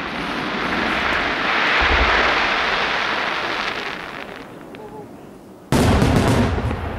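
Aerial fireworks: a broad hissing rush swells over the first two seconds and fades away. About three-quarters of the way through, several shells burst together with a sudden loud boom.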